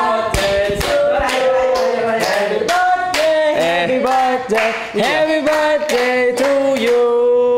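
Several people singing together while clapping along to a steady beat, about two to three claps a second.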